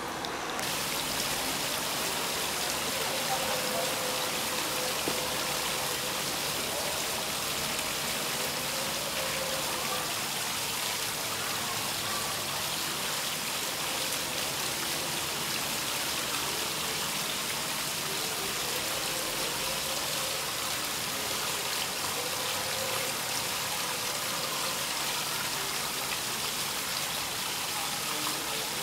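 Three-tiered fountain splashing water steadily into its basin.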